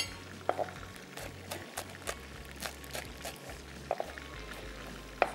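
Hot cooking oil sizzling in a pan with scattered crackles and pops, and a few light knocks.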